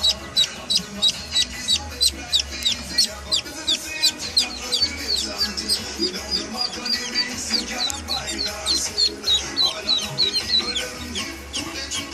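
Live ducklings peeping loudly and without pause, rapid high calls that each drop in pitch, several a second, the distress calling of ducklings caught by Dumeril's boas. A steady low hum runs underneath.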